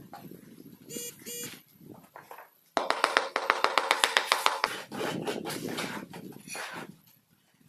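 Floor tile being tapped down into its mortar bed with a mallet: a rapid run of sharp knocks, about eight a second, for around two seconds. Then mortar scraped in a plastic bucket.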